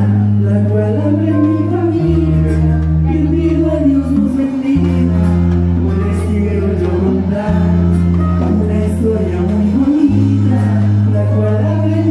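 A live band playing with singing over the PA: a deep, loud bass line holding each note for two or three seconds before stepping to the next, with voices and percussion on top.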